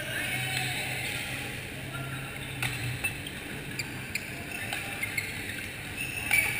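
Badminton rally in a sports hall: sharp racket hits on the shuttlecock and sneakers squeaking on the court floor, echoing, with the loudest hits near the end.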